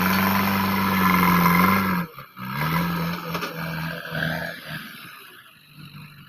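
JCB 3DX backhoe loader's diesel engine running under load with a steady drone. Its pitch rises, then drops away sharply about two seconds in, picks up again, and fades toward the end.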